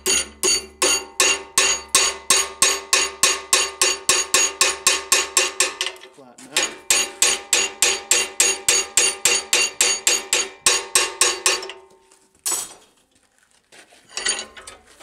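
Rapid, steady hammer blows on a small steel bracket clamped in a bench vise, rounding its edge over: about four to five ringing metallic strikes a second in two long runs with a short pause between. One lone blow follows, then a few fainter knocks near the end as the vise is worked.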